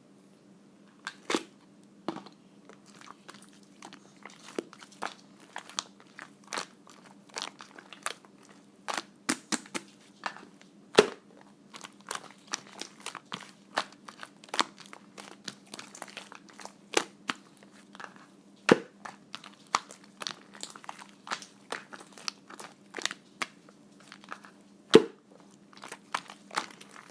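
Slime being squeezed and poked by hand, making irregular sharp clicks and pops a few times a second as air pockets burst, with a few louder pops among them.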